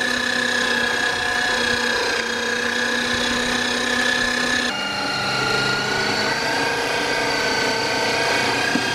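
Electric meat grinder motor running with a steady whine as it grinds yam chunks into paste. About five seconds in the pitch drops suddenly, then slowly creeps back up.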